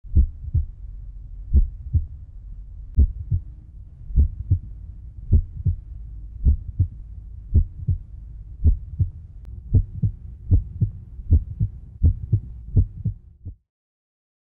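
Heartbeat sound effect: deep, low lub-dub thumps, about one pair a second over a low rumble, quickening in the last few seconds before stopping abruptly.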